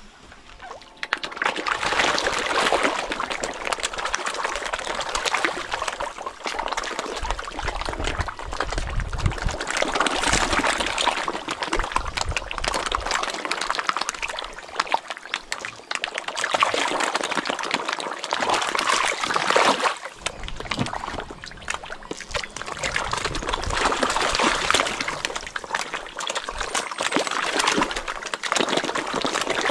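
Water running, starting suddenly about a second in and carrying on unevenly.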